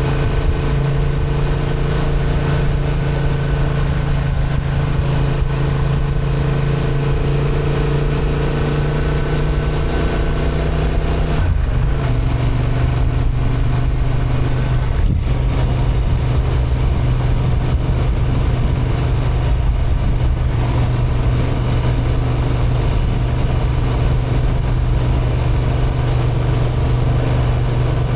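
Honda XL750 Transalp's parallel-twin engine running steadily under load on a climb. About eleven seconds in its note breaks briefly and settles at a slightly lower pitch, like an upshift.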